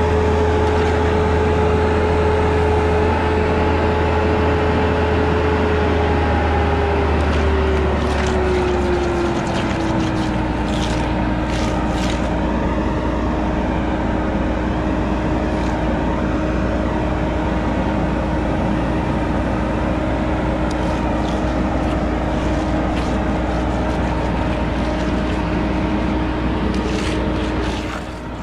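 An engine running steadily. About eight to ten seconds in its pitch drops, and it runs on at the lower speed.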